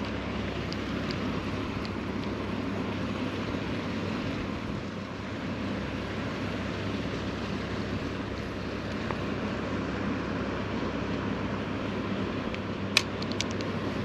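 Steady rushing outdoor noise with a low, even hum beneath it, and one sharp click near the end.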